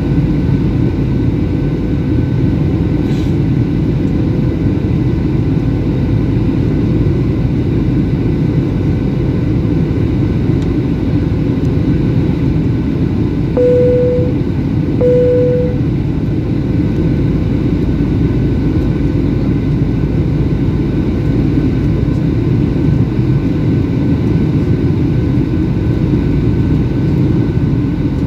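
Steady cabin roar of a Boeing 737 in flight on approach, engines and airflow, with a faint constant whine. Midway, two short tones at the same pitch sound about a second and a half apart.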